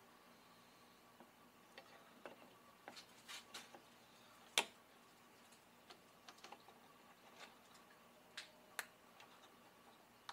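Scattered quiet clicks and taps of hands fitting parts on a Jeep Wrangler JK's front grille, against near silence. The sharpest click comes about four and a half seconds in, and two more come near the end.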